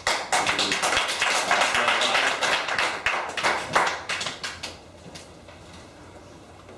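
Audience applauding, a dense spatter of hand claps that dies away about five seconds in.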